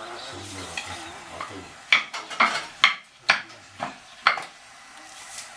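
Sharp clacking knocks, about two a second for a couple of seconds, from a wooden pole tamping hot stones down into a gutted marmot carcass.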